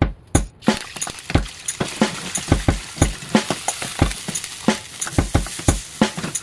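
Stir-frying in a pan: hot oil sizzles in, starting suddenly about half a second in, while a metal utensil knocks and clinks against the pan several times a second as the fried rice is tossed.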